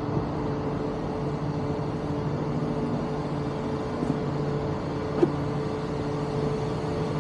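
Steady low mechanical hum of a running machine, holding a few fixed pitches over outdoor city background noise, with a single sharp click about five seconds in.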